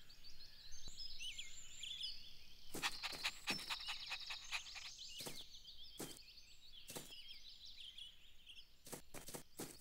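Quiet cartoon garden ambience of songbirds chirping: many short, high chirps and twitters, with a few sharp clicks scattered through.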